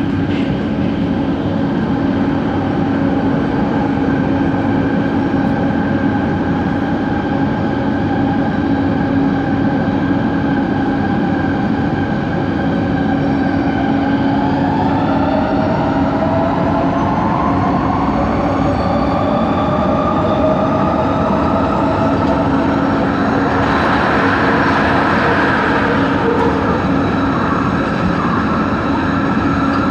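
Inside an LRT train car (Set 70, coach 4): a steady hum runs throughout, and from about halfway through the traction motor whine rises in pitch as the train gathers speed, with a rush of wheel and rail noise a little later. This coach carries the unusual motor noise the ride was recorded for.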